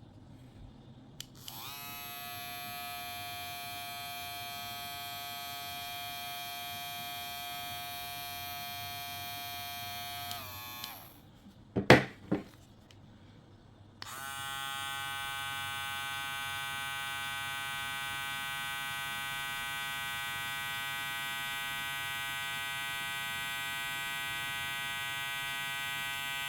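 Kemei KM-2796 electric hair clipper running at its highest speed setting, a steady high-pitched motor hum that winds down and stops after about nine seconds. After a couple of clicks, a clipper is switched on again and runs steadily, a little louder, for the rest of the time, for comparison.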